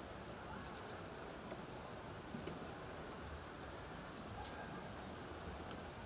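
Outdoor lakeside ambience: a steady low background hush with faint, high-pitched small-bird chirps, including one short wavering call about four seconds in and a few scattered ticks.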